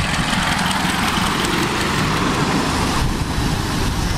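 Ride-on miniature steam locomotive and its passenger car passing close by on the track: a steady rushing noise over a low rumble of wheels on rail, easing off about three seconds in as it moves away.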